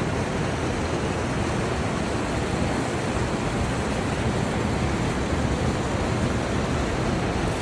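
Steady rush of river water, a constant noise with a heavy low rumble.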